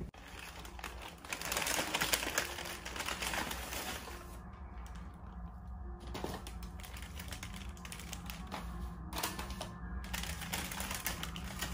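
Rapid, irregular clatter of small clicks and taps as small objects such as containers and wrappers are handled and gathered up while tidying away, over a faint steady low hum.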